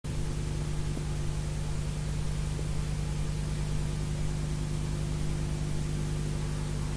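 Steady recording hiss with a low electrical hum underneath, the background noise of an old video transfer before the music begins.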